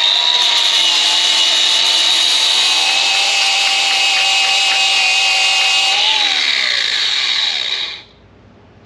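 Power grinder running at steady speed, grinding old weld spots smooth on the log splitter's steel frame. About six seconds in it is switched off and its whine falls in pitch as it spins down, cutting out just before eight seconds in.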